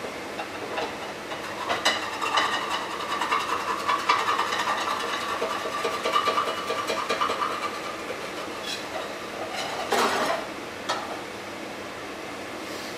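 A utensil scraping and clattering in a frying pan for several seconds, with a squeaky ringing scrape, then a louder clatter about ten seconds in, over the steady noise of the stove's vent fan.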